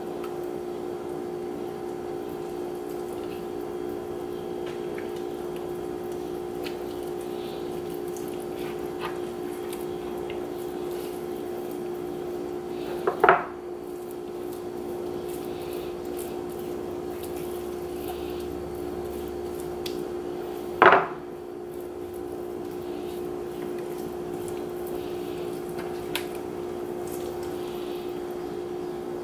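Hands rubbing and patting seasoning onto a whole black sea bass on a cutting board, heard as faint wet handling sounds over a steady hum. Two short, loud sounds come about 13 and 21 seconds in.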